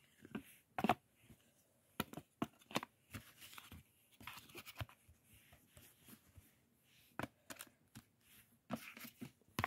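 Thick cardboard jigsaw puzzle pieces being handled and set down into their cardboard box: faint, irregular light taps and scrapes with some rustling.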